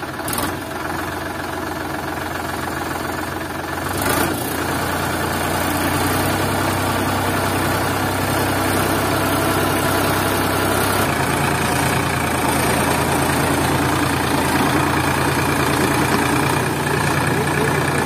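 Sonalika DI 740 III tractor's diesel engine running under load while the tractor is stuck in deep mud. It gets louder about four seconds in and keeps running steadily.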